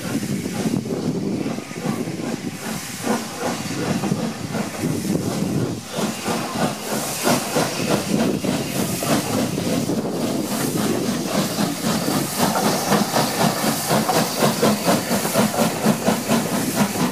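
SR Schools class 4-4-0 steam locomotive No. 925 Cheltenham getting a train under way: steam hissing from its open cylinder drain cocks, with a regular chuff of exhaust beats that grows stronger through the second half.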